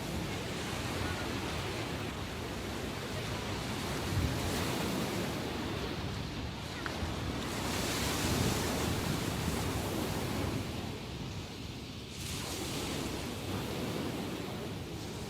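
Ocean surf after a typhoon: waves breaking and washing in a continuous rushing wash. It swells loudest a little past the middle, with another surge near the end.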